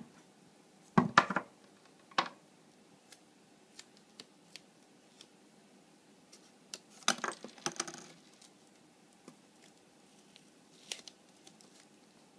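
Black adhesive tape being pulled off its roll and pressed onto a cardboard toilet-roll tube, with small taps and crinkles from handling. Short rasping bursts come about a second in, again about two seconds in, in a cluster around seven to eight seconds, and once more near eleven seconds.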